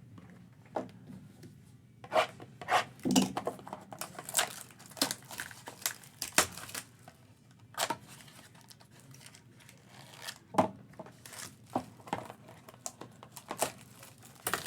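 Plastic wrapping on a sealed box of trading cards being torn open and crinkled by hand, in a run of irregular sharp rips and crackles.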